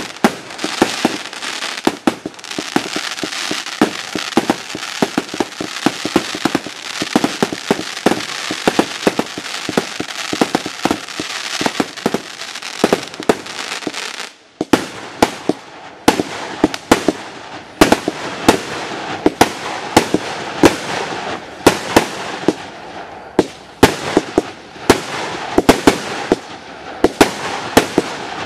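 Pyrofactory 'Austrian Power' consumer firework battery firing: a rapid, continuous string of sharp reports as shots launch and burst, over dense crackling. About fourteen seconds in it drops off briefly, then resumes with loud, separate reports and hiss between them.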